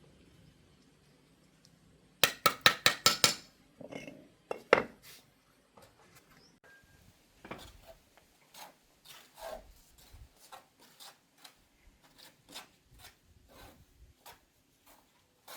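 Sharp knocks and clinks of hard objects striking: a quick run of about seven loud strikes about two seconds in, one more loud strike a little later, then lighter strikes about twice a second.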